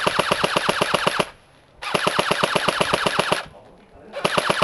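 D-Boys AK-74U airsoft electric gun firing full-auto bursts: a fast, even clatter of shots as the gearbox cycles. There are three bursts with short pauses between them, the last starting near the end.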